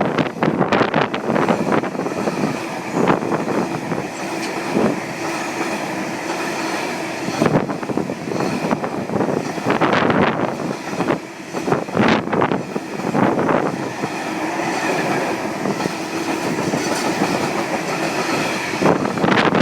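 A train running on the rails, its wheels clicking over rail joints at uneven intervals above a steady mechanical hum.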